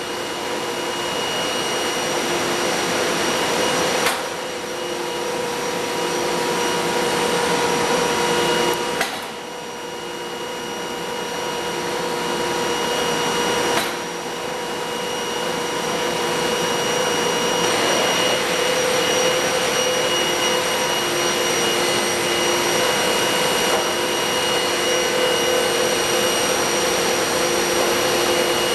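Large high-speed four-sided planer (moulder) running: a steady whine from the spinning cutter heads under a loud rush of air. The sound changes abruptly three times, about 4, 9 and 14 seconds in, dropping back and then building up again.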